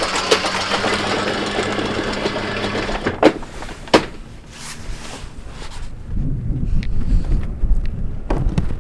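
Electric anchor winch hauling in the anchor chain with a steady hum and rattle, stopping about three seconds in. Two sharp clunks follow, then a low rumble near the end.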